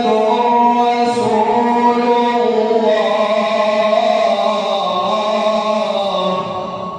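A man reciting the Quran in melodic tajweed style, holding one long drawn-out chanted phrase whose pitch shifts slowly, fading near the end.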